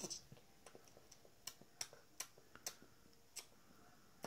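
Near silence broken by several faint, irregular clicks as small plastic and plush toys are handled.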